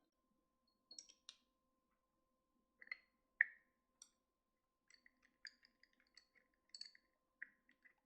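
Faint, irregular clicks and taps of small hard parts or hand tools being handled. The sharpest tap comes about three and a half seconds in, followed by a run of light, quick clicks over the last three seconds.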